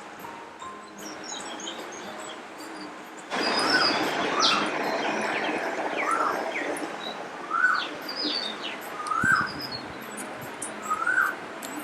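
Birds calling in the open: scattered high chirps, and from about four seconds in one bird repeats a short rising-and-falling call roughly once a second. Steady background hiss that gets louder about three seconds in.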